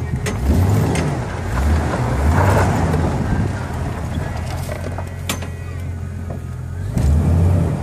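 1999 Jeep Wrangler being driven on a gravel road, heard from inside the cab: a steady engine-and-road rumble that swells and eases, louder again near the end, with one sharp knock a little past five seconds in.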